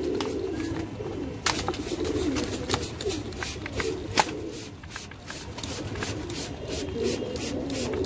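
Pigeons cooing steadily in the loft, with a few short, sharp spritzes from a hand trigger-spray bottle partway through.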